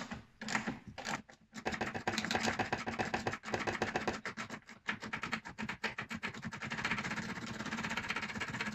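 Socket ratchet clicking fast as a 13 mm strut top-mount bolt is undone. A few separate clicks come first, then an unbroken run of rapid clicks from about a second and a half in, over a low steady hum.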